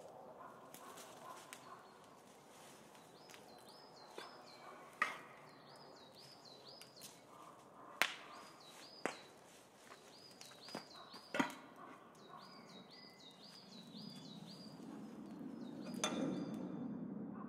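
Faint woodland soundtrack: a small bird repeats high chirps in quick runs, broken by a few sharp cracks. A low rumble swells near the end.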